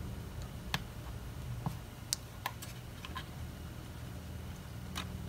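Scattered light clicks and taps, about seven of them, from handling a small acrylic-cased electronic component tester, over a steady low hum.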